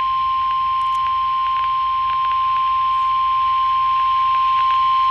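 NOAA Weather Radio 1050 Hz warning alarm tone: one steady, unbroken high beep over radio hiss, the signal that a warning message follows.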